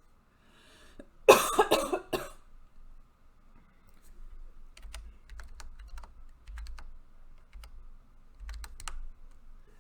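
One loud, explosive burst from a person's throat about a second in, lasting just under a second. Then computer keyboard keys are pressed in scattered keystrokes for the rest of the time, as a web address is typed in.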